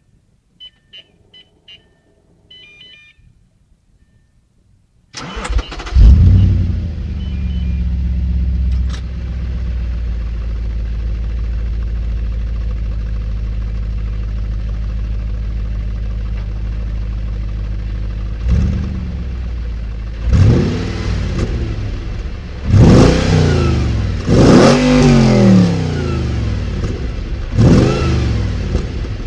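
A few short electronic beeps, then a stock 2007 Audi RS4 B7's 4.2-litre V8 cranks and catches about five seconds in, flaring up before settling to a steady idle. From about 18 s in it is revved in several quick blips that rise and fall sharply, with the exhaust 'S' mode disabled.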